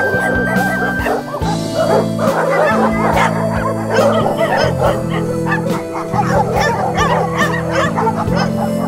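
Puppies giving many quick high-pitched yips as they play-fight, over background music holding steady notes.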